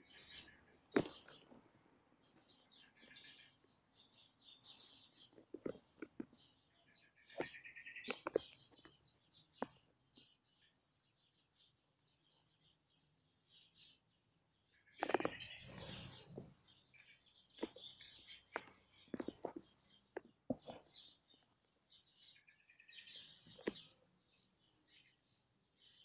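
Birds chirping in the background, in short bursts of high calls, with scattered sharp clicks and crackles over the top.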